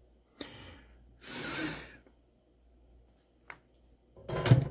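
A man's breathy exhales while he solders: a hissy one about a second in and a louder, thudding burst near the end, with a couple of short clicks in between.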